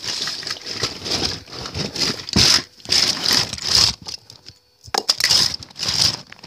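Irregular rustling and crinkling as things are handled close to the microphone, with a short pause about four and a half seconds in.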